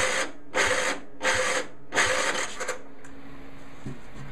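Electric starter cranking a small single-cylinder tractor engine very slowly, labouring in four surges about two-thirds of a second apart before it stops. The starter struggles against full compression because the engine's compression release is not working.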